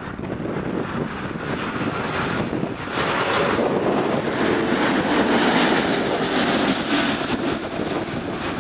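Jet engines of a twin-engine wide-body airliner on final approach, gear down, passing low overhead: a steady roar that builds from about three seconds in, is loudest a little past halfway, then eases slightly.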